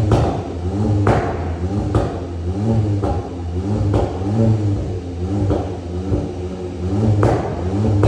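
Volkswagen Golf GTI's 2.0-litre turbocharged four-cylinder petrol engine revved in repeated blips, rising and falling about once a second, with sharp cracks from the exhaust on several of the blips: the pops and bangs of a stage 1 remap.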